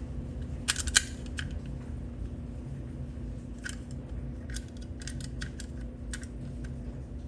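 Scattered metallic clicks and clinks from a door-hinge spring being worked into its spring-compressor tool, the loudest pair about a second in, over a steady low hum.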